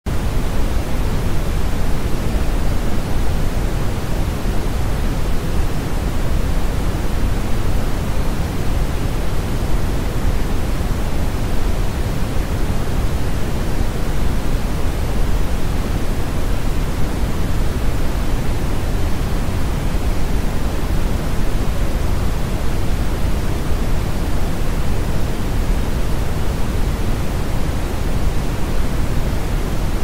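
Brown noise: a steady, even rushing hiss, deep and heavy in the bass and falling away toward the treble, with no change throughout.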